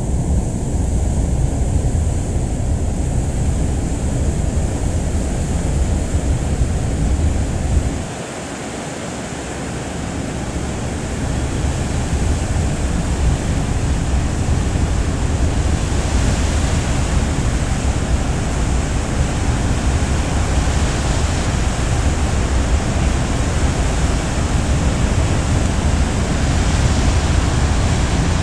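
Wind rumbling on the microphone over a steady rush of sea, heard aboard a moving ferry. The low rumble drops away for a moment about eight seconds in, then builds back as the hiss grows brighter.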